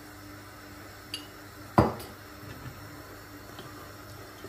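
A spoon knocks sharply once against a cooking pot and rings briefly, with a lighter clink just before it, over a faint steady hum.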